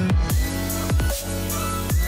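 Electronic dance music with deep kick drums that drop in pitch and a sustained heavy bass under synth tones.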